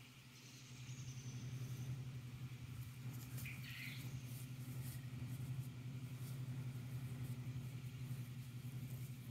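A steady low hum, louder from about a second in, over faint scattered ticks and rustles. A short high chirp comes about three and a half seconds in.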